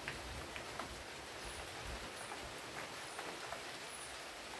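Light rain falling: a faint steady hiss with scattered drops ticking.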